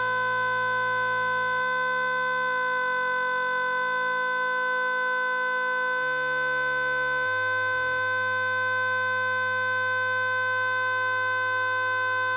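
Loud, steady electronic tone held on one pitch with several overtones, like a siren that does not rise or fall. Deeper tones beneath it jump to new pitches several times.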